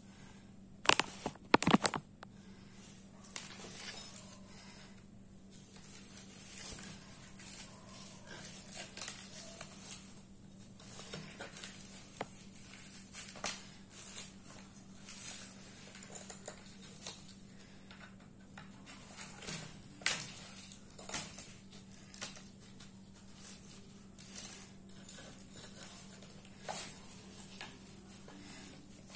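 Hardened cow-dung crust being chipped and scraped off a cloth-wrapped pot with a blue-handled tool, with irregular crunching and scraping as lumps break off and drop onto paper. A few sharp knocks come about a second in. The dung has set hard after 48 days.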